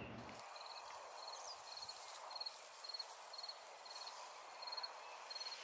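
Faint, evenly spaced chirps of a cricket, about two a second, over a soft outdoor hiss.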